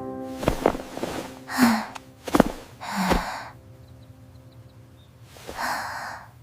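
Three breathy, sigh-like exhalations a second or two apart, each a short rush of air. A few light clicks sit among them, and a piano chord dies away at the start.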